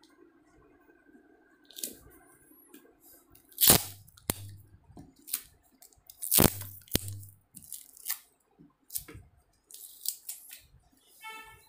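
Handling noise from a sheet of paper and a pen on a table: scattered sharp clicks and taps, two of them much louder than the rest, with faint rustling between.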